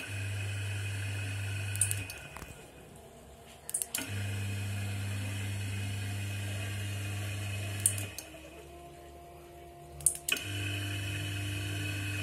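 Sliding-gate opener motor running in three short bursts as the remote is pressed, a steady low hum each time, with a sharp click at each start and stop. The runs last about two seconds, then about four seconds from about four seconds in, then about two seconds near the end.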